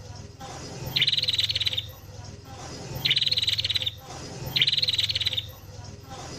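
A small songbird's rapid, even chattering trill, given three times in short phrases under a second long, over a steady low hum.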